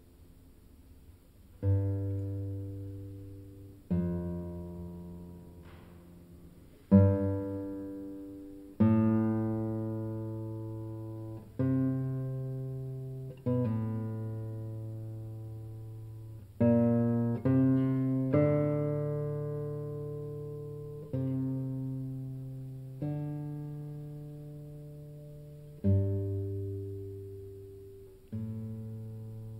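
Solo nylon-string classical guitar playing a slow passage of plucked chords, each struck and left to ring and fade, about one every two seconds, with a quicker cluster of notes near the middle.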